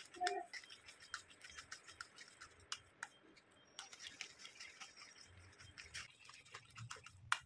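Small hand whisk beating thick milk cream in a stainless steel kadhai: a fast, irregular run of faint scrapes and clicks against the pan as the cream is churned into butter.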